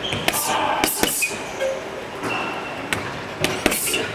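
Boxing gloves punching a hanging heavy bag: quick combinations of thuds, three in a row about a second in and three more near the end.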